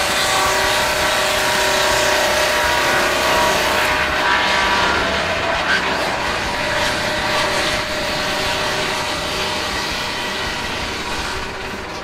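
Electric swingblade sawmill's circular blade running and cutting through a gum log: a steady machine whine over a hiss of sawing. It eases off a little near the end.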